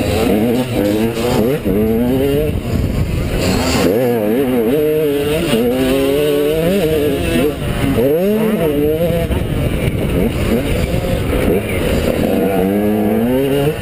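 Enduro dirt bike engine heard from the rider's helmet, revving up and dropping back again and again with the throttle and gear changes, with a couple of brief lifts off the throttle. Wind rumbles on the microphone underneath.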